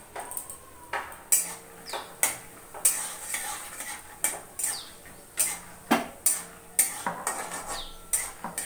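Spoon clinking and scraping against a metal kadai as peanuts are stirred in hot mustard oil, an irregular run of knocks about two or three a second.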